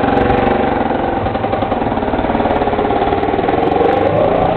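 An engine running steadily, its pitch rising slightly near the end.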